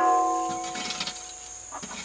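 A metal scoop shovel knocked at the very start and ringing on with a few clear tones that die away over about a second and a half, as soiled straw is shovelled out. Small scrapes follow near the end.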